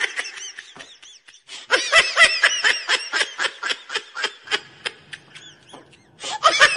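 A high-pitched snickering laugh, a comedy sound effect, in rapid pulses of about five a second, breaking off briefly about a second in and starting again near the end.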